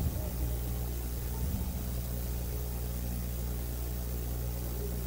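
A steady low hum with a faint hiss over it.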